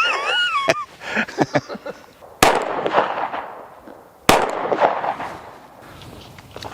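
Two gunshots about two seconds apart, each a sharp crack followed by a long echo that rolls away over the open range.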